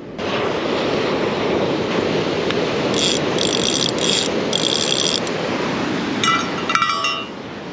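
Fishing reel clicker ratcheting in short runs of fast clicks, a couple of seconds at a time, over the steady wash of surf.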